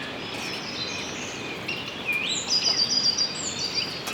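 Birds calling over a steady background hiss, with a quick run of high chirps from about two seconds in.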